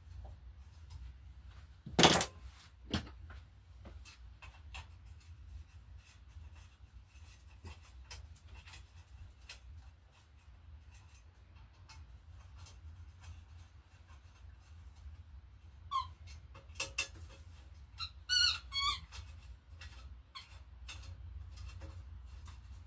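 Hand tools working on bicycle parts while a bike is stripped down. A sharp metal clank comes about two seconds in and a lighter one just after, with scattered small ticks. Near the end there are a few short squeaks from a part being turned or worked loose.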